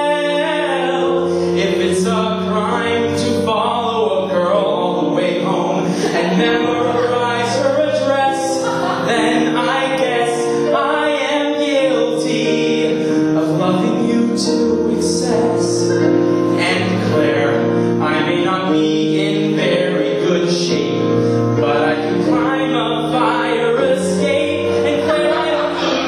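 Music from a live musical-theatre song: sustained accompaniment with a man's singing voice.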